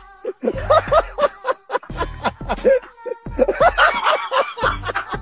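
Men laughing hard in repeated broken bursts, over background music with a low bass beat about every second and a half.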